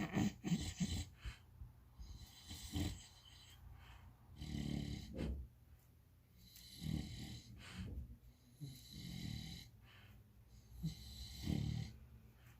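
English bulldog snoring in its sleep: about six snores, roughly two seconds apart, with a few short snorts at the start.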